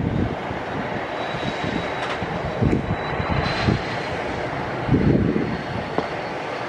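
Aero L-39 Albatros jet's single turbofan engine running as the jet rolls along the runway: a steady rushing noise with a faint high whine. Irregular low rumbles rise through it, the strongest about five seconds in.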